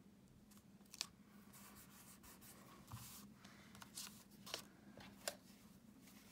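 Faint handling of small cardstock and patterned-paper pieces being positioned and pressed together: soft rustles with a few light, sharp ticks scattered through.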